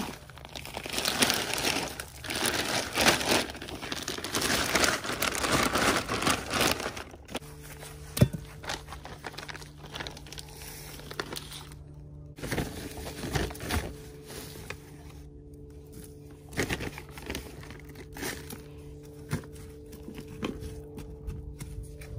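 A plastic bag of potting mix crinkling and rustling while soil is handled over a plastic tote. Then comes intermittent scraping and clicking of a small hand garden tool working the soil in the tote, over a steady low hum that starts about seven seconds in.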